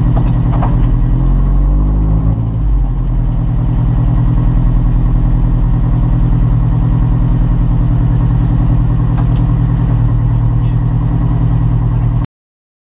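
Toyota MR2's engine idling steadily, heard from inside the cabin, with a brief wavering in pitch about two seconds in. The sound cuts off suddenly near the end.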